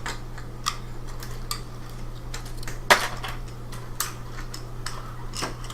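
Small plastic transforming toy robot being handled and transformed: scattered plastic clicks and clacks as its parts snap into place, with one sharper click about three seconds in. A steady low hum sits underneath.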